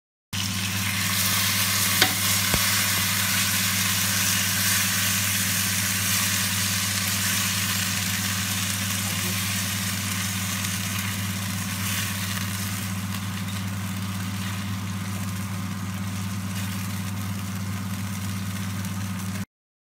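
Garlic soup with potatoes sizzling in an earthenware cazuela: a dense, steady hiss that eases slightly as it goes on, with a steady low hum underneath. A utensil knocks twice against the dish about two seconds in.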